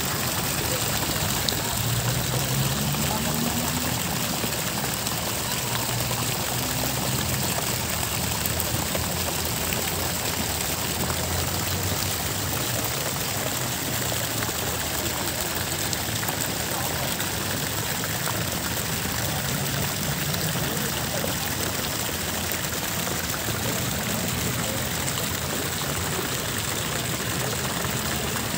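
Fountain jets falling into a pool, a steady splashing rush of water.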